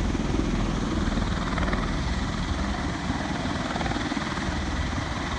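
V-22 Osprey tiltrotor running close by: a rapid low beat from its proprotors under a steady turbine rush, with a thin steady high whine.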